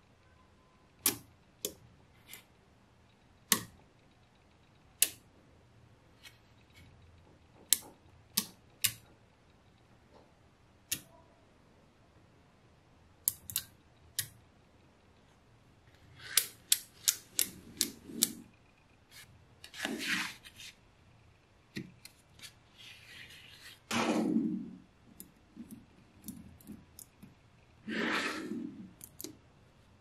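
Small magnetic balls clicking sharply together one at a time as they are snapped into place. The clicks come more often toward the middle, and three times in the second half there is a longer rattling clatter of many balls.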